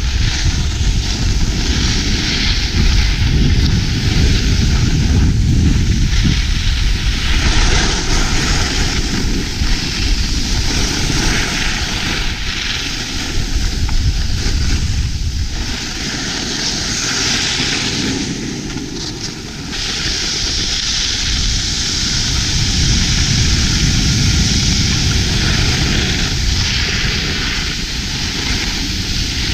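Wind buffeting an action camera's microphone over the steady hiss and scrape of skis sliding on packed snow. The hiss eases briefly about two-thirds of the way through.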